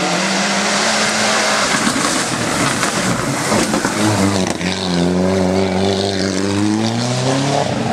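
Hill-climb race car engine running hard at high revs, with a brief break about four seconds in and the pitch falling near the end.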